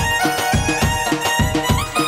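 Instrumental break of a Bangladeshi baul folk band: a dhol drum beats a steady rhythm of about four strokes a second under a reedy lead melody, with keyboard and banjo.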